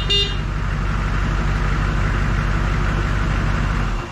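Humvee's 6.2-litre GM diesel idling steadily, with a short horn beep right at the start; the engine is shut off near the end and the sound falls away.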